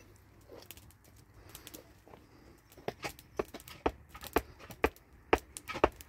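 Faint handling noises, then from about three seconds in a steady run of sharp chopping blows, about two a second, growing louder.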